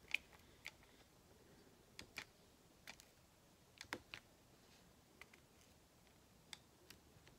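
Light, irregular clicks and taps of a diamond-painting drill pen picking up round resin drills from a plastic tray and pressing them one by one onto the canvas, about a dozen faint clicks over a quiet background.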